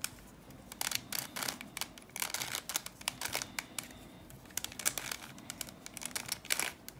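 Plastic Bermuda Uranus puzzle cube being twisted by hand: irregular runs of small plastic clicks and scrapes as its faces are turned.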